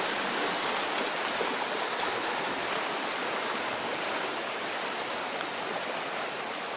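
Creek water running, a steady, pretty loud rushing sound with no break.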